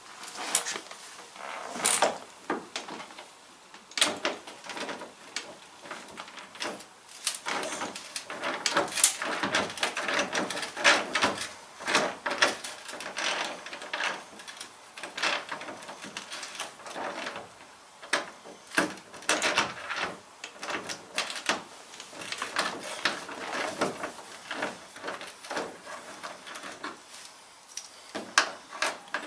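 Hand-tool work on a pickup's wheel well: an irregular run of clicks, knocks and rattles as a 10 mm bolt and plastic trim fasteners are worked loose.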